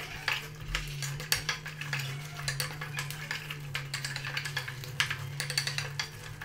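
Wooden spatula stirring a thick chicken curry in an aluminium pot, with irregular scrapes and knocks against the pot's sides and bottom, over a steady low hum.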